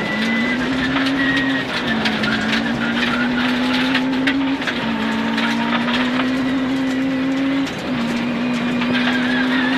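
Peugeot 106 rally car's engine at full throttle on a gravel stage, heard from inside the cabin, its pitch stepping up and down with the gear changes. Loose gravel ticks and rattles against the underbody throughout.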